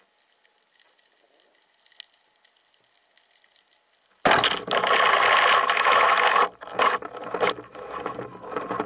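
Faint underwater hiss with a single click. About four seconds in, a speargun is fired with a sudden loud crack, followed by about two seconds of loud rushing noise and several shorter loud bursts.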